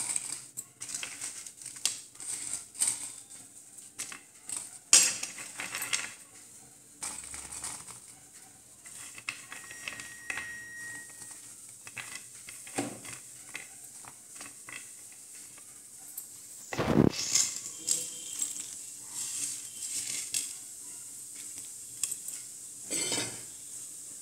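Dry coconut pieces and dried red chillies dropped by hand into a steel mixer-grinder jar, with scattered clinks and clatters of steel vessels being handled. A louder knock comes about five seconds in and another around seventeen seconds.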